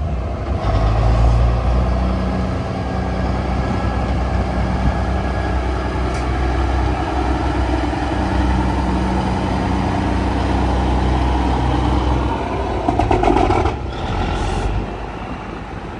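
Ford CL9000 cabover semi tractor with a Caterpillar 3406B inline-six diesel, driving off under load. The engine note rises and drops several times as it pulls through the gears, with a brief rattling burst about 13 seconds in, then fades as the truck moves away.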